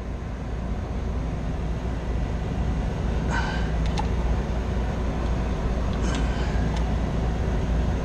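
Steady low rumble, with two brief metallic scrapes about three and six seconds in as a tight new blower bearing is worked onto its shaft.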